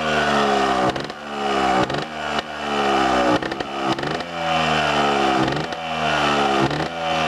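Scorpa trials bike's two-stroke engine running on full choke while the throttle is blipped over and over, the revs jumping up and falling back about once a second.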